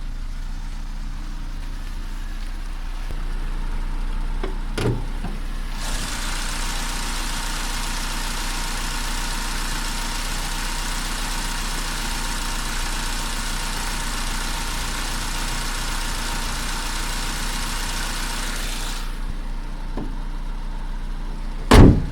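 Opel Corsa D's 1.2 Z12XEP four-cylinder petrol engine idling steadily, warm after a drive, with the tapping suspected as noisy tappets seemingly gone. A steady rushing hiss joins about six seconds in and stops about thirteen seconds later, and a sharp loud knock comes near the end.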